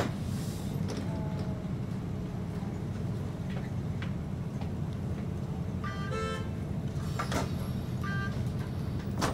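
Steady low hum inside a UTDC CLRV streetcar's cabin at a stop while passengers board, with short electronic beeps from the PRESTO fare card reader as cards are tapped, about six and about eight seconds in. A sharp click at the start.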